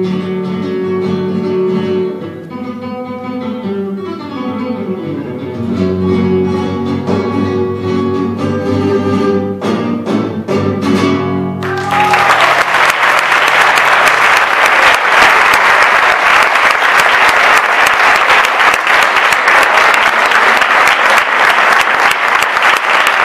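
Solo flamenco guitar playing the closing bars of a malagueña, ending on a few hard strummed chords. About halfway through, the audience breaks into loud, steady applause.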